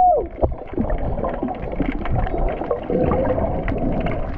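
Muffled underwater sound as picked up by a camera below the surface: a steady rush of water with scattered small clicks and bubbling. A short tone rises and falls right at the start, and a brief held tone comes about three seconds in.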